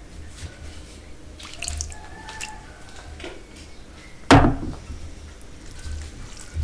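Curry gravy poured from a glass bowl onto a plate of rice, with one loud wet splash about four seconds in, among soft wet squelches of fingers mixing rice and curry.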